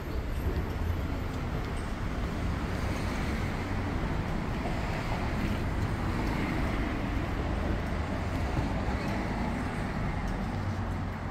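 City street traffic: cars and other vehicles passing in a steady wash of engine and tyre noise.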